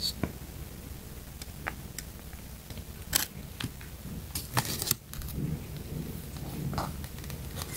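Handling noise from a small glass cosmetics jar with a plastic cap and a paper leaflet being turned over in the hands: scattered light clicks and short rustles, the loudest about three seconds in and again between four and five seconds in.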